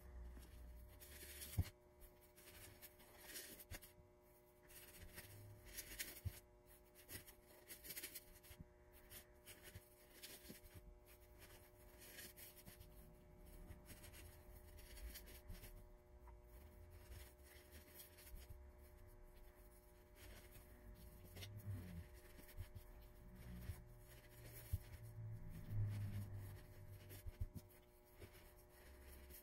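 Faint rustling and scratching of cotton fabric strips being handled and tucked into a foam craft pumpkin, over a low steady hum. The handling gets a little louder between about 21 and 27 seconds in.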